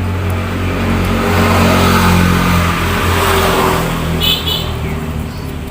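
A motor vehicle engine running, with its sound swelling to a peak about two seconds in and then easing off, as a vehicle going past would. A brief high chirping comes about four seconds in.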